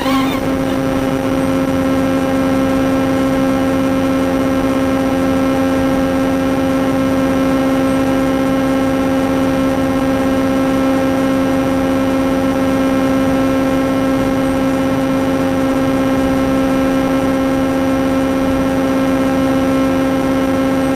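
A steady hum at one fixed pitch with overtones, unchanging throughout, picked up aboard the RC truck while it sits still.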